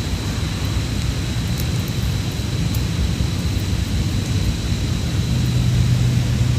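Wind buffeting the microphone outdoors: a steady low rumble, growing a little stronger near the end, with a thin faint high whine under it.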